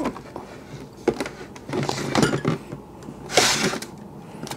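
Handling noise from a whole cooked lobster: its hard shell knocks and scrapes on a metal tray. There are scattered light knocks, and a short hissing scrape about three and a half seconds in.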